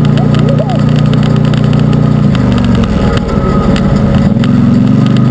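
Arctic Cat Wildcat UTV's V-twin engine running: the note holds steady for about two seconds, wavers, and then rises as the throttle is opened.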